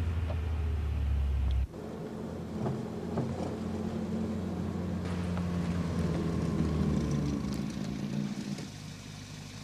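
Car engine running, heard from inside the cabin as a steady low drone that cuts off abruptly about two seconds in. It gives way to the quieter hum of a car driving up, which eases off near the end as the car slows.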